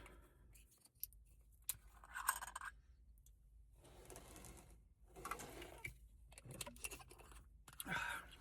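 Faint handling of a miniature moonshine bottle: a few small clicks and scrapes, then several short breathy noises as the butter pecan moonshine is sipped.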